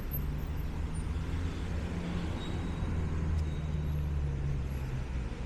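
A motor vehicle's engine running close by, a low steady hum that eases off about five seconds in, over general street traffic noise.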